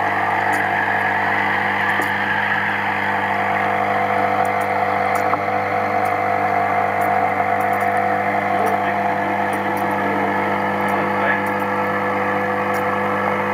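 Steady hum and hiss of an aquarium's running filter and air pump, heard through a camera submerged in the fish tank, so the sound is muffled and constant.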